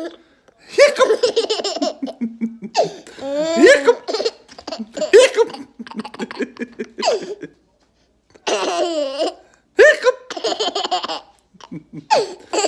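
A young child laughing hard in repeated high-pitched bursts of giggles and belly laughs, with short pauses for breath between them.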